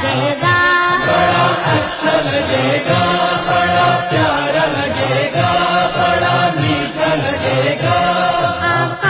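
A chorus singing an Urdu naat in unison, holding long notes, over a steady drum beat.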